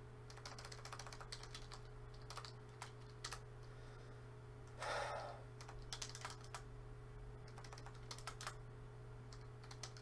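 Typing on a computer keyboard: irregular runs of quiet key clicks over a low steady hum, with a brief soft hiss about five seconds in.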